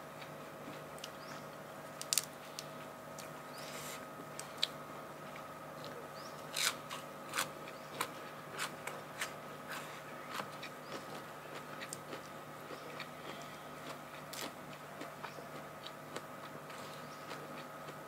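A person eating close to the microphone: crisp crunching bites and chewing, with a quicker run of crunches about six to ten seconds in.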